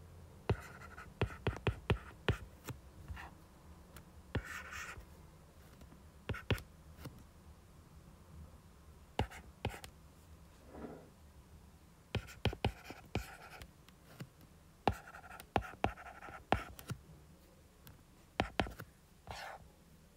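Stylus tip tapping and scratching on a tablet's glass screen as equations are handwritten. It comes in several bursts of quick clicks mixed with short scratchy strokes, with brief pauses between them.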